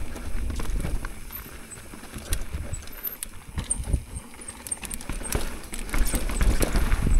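Mountain bike riding down a rough singletrack trail: tyres rolling on dirt while the bike clatters and knocks irregularly over roots and rocks. Rumble and wind on the microphone grow louder toward the end as speed picks up.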